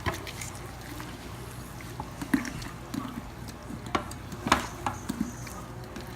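A raw turkey being pierced all over with a fork or knife: wet squishing as the skin and meat are punctured, with a few sharp clicks, over a low steady hum.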